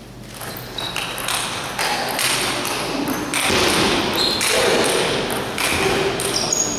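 Table tennis rally: the ball clicking sharply off the bats and the table in quick succession, about two hits a second, with a few short shoe squeaks on the hall floor.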